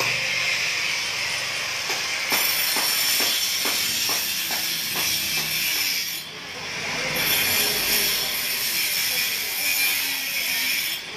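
Corded angle grinder cutting into a concrete floor: a steady, loud, high grinding hiss. It eases off briefly about six seconds in, then bites into the concrete again.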